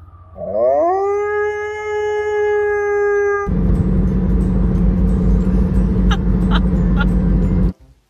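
Husky-type dog howling: one long howl that rises in pitch and then holds steady for about three seconds. It breaks off suddenly and gives way to loud, steady road and engine noise, which stops abruptly near the end.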